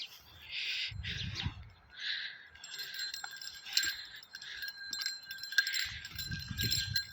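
Small metal bells jingling and ringing in irregular shakes, with a short low rumble about a second in and again near the end.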